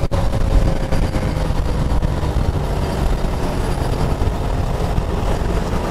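TVS Apache RTR 160's single-cylinder engine and wind rush at highway speed, the engine note slowly dropping as the rider rolls off the throttle from about 100 km/h.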